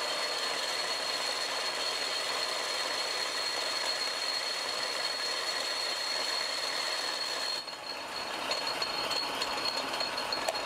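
Metal lathe running while a parting tool cuts through the steel tube of a tractor PTO driveline: a steady machining noise with a high, even whine. The noise eases briefly about three quarters of the way through, then picks up again.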